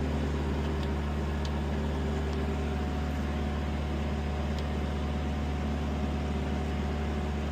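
Steady low mechanical hum, as of a nearby idling engine or machine, with a few faint light clicks.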